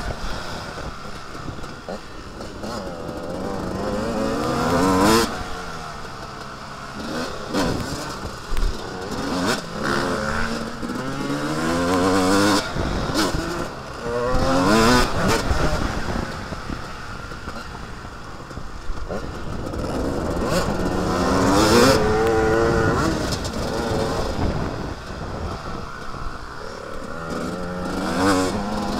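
Motocross bike engine revving up and dropping back over and over as it is ridden around the track, the pitch climbing in repeated sweeps, with wind and rough noise on the helmet-mounted microphone.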